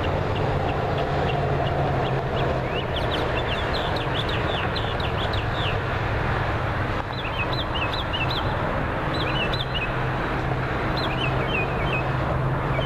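Steady rush of interstate highway traffic, with a bird chirping over and over in quick runs of short high notes.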